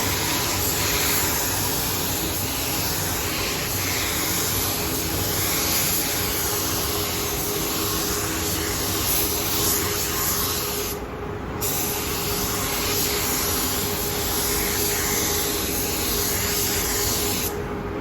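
Compressed-air paint spray gun hissing steadily. The trigger is released briefly about eleven seconds in and again near the end.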